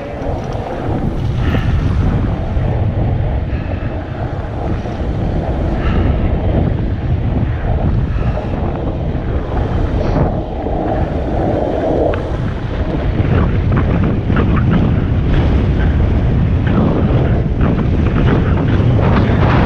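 KTM 300 two-stroke dirt bike engine running while being ridden along a dirt trail, heavily buffeted by wind noise on the microphone.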